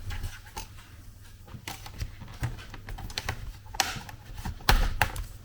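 Plastic clips of a laptop's bottom case clicking and snapping as the case is pried off with a pry tool: a quick irregular run of small clicks, with a few louder snaps just before the end.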